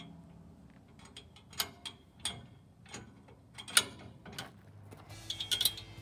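Scattered metal clicks and clinks of steel bike-rack parts and bolts being handled as the bottom bar is lined up and M10 bolts are pushed through its mounting holes. One sharp clink a little past the middle is the loudest, and a quick run of clinks comes near the end.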